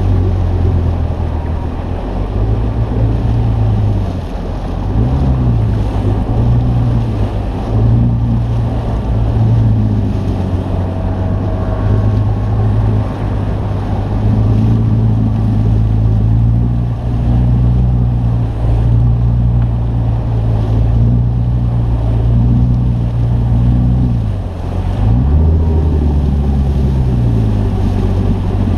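Bass boat's outboard motor running at low speed, its pitch dipping and rising again about four seconds in and again near the end, over wind and water noise.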